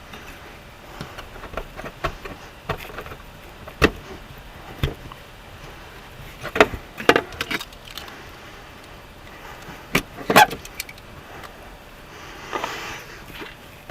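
Scattered metallic clinks and knocks of hand tools and metal being handled, a few sharp strikes several seconds apart and no power tool running.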